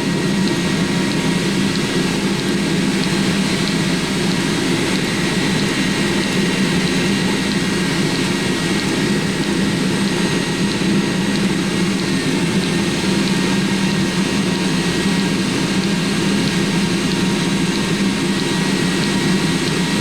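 Eberspacher D1L diesel air heater running steadily, its combustion fan and burner giving a constant hum with a thin high whine over it. The heater is sustaining its flame on the low setting, not yet in high gear.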